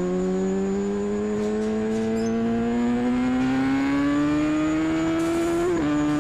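Motorcycle engine accelerating, its pitch climbing steadily for about six seconds, then dropping suddenly near the end like a gear change.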